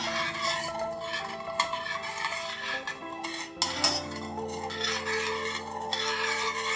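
A metal ladle stirring thin sauce in a stainless steel saucepan, scraping and clinking against the pan again and again, with soft background music.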